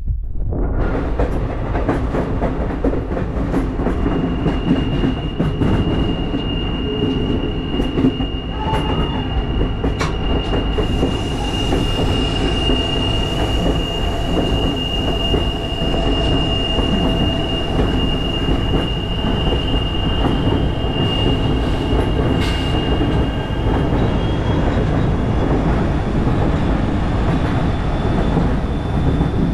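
Passenger train running along a curving line, heard from a car's open platform: a steady rumble of wheels on the rails, with a high, steady wheel squeal from the curve starting about four seconds in and going a little higher in pitch over the last few seconds.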